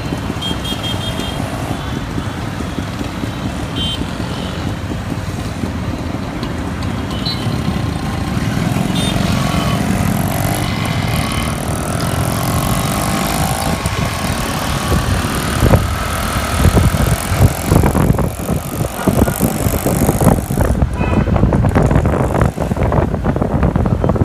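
Road noise from riding on a motorbike through city traffic: the bike's engine running, with a few short horn toots in the first half. Further in, the level rises and wind buffets the microphone unevenly.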